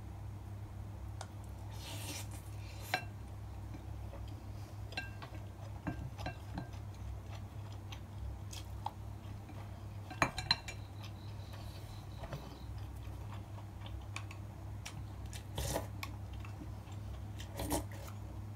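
Chopsticks and a spoon clinking and scraping against a ceramic plate and bowl while eating rice, in light scattered clicks over a steady low hum.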